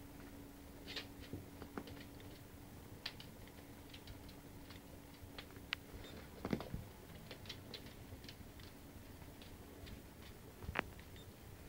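Faint scattered scratches and clicks of a small puppy's claws pawing at the side of a fabric dog bed, with a louder knock about halfway and another near the end.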